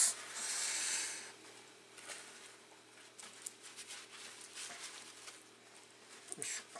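Paper towels rustling and crinkling as they are pressed around raw mullet roe sacs to blot off water. A louder rustle comes about half a second in, followed by soft, scattered crackles of the damp paper.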